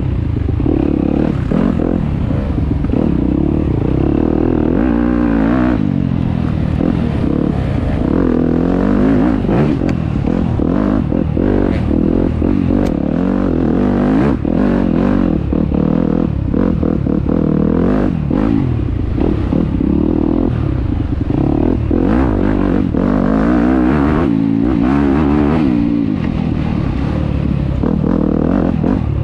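Enduro dirt bike engine running under constantly changing throttle, its pitch rising and falling again and again, with many short knocks and clatter.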